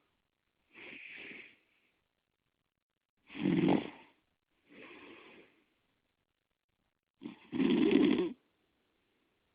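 Loud snoring in slow breath cycles: two strong snores about four and a half seconds apart, each the loudest sound in its cycle, with a softer, hissier breath about a second and a half after the first snore and a similar soft breath before it.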